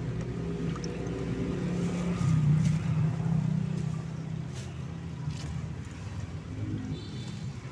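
A motor vehicle's engine running close by, a steady low hum that swells louder about two and a half seconds in and then eases off.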